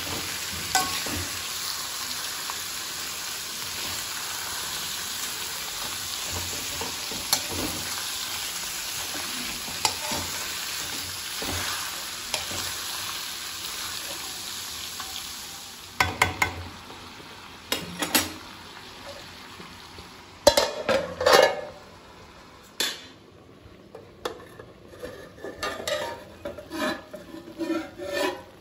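Chicken pieces sizzling in hot oil in an iron kadai while a steel spoon stirs them: a steady frying hiss. About halfway through the hiss drops away, leaving the spoon scraping and knocking against the pan, with a few louder metal clanks.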